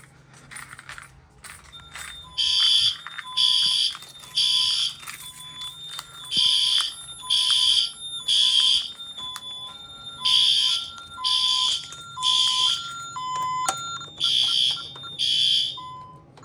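Honeywell Vista fire alarm horn sounding in the temporal-three fire evacuation pattern: three half-second blasts, a pause, then repeating, with the last group cut off after two blasts. Quieter steady beeps that switch between two pitches run between the blasts.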